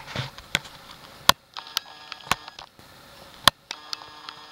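Camera's autofocus motor whirring in two stretches as the lens hunts for focus, with a few sharp handling clicks.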